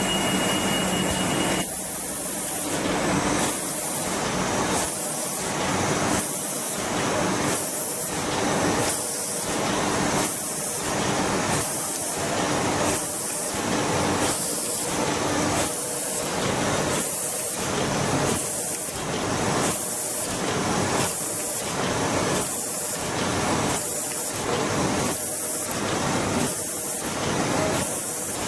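A320 automatic flat screen printing machine running, with a loud hissing that pulses in an even rhythm, a little more than once a second. A brief steady high tone sounds in the first second and a half.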